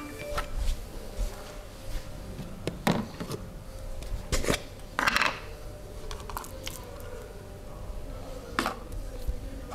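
Irregular close-up clicks and taps with a brief rubbing sound about five seconds in, over a faint steady hum: handling noise from hands and small tools during the barber's treatment.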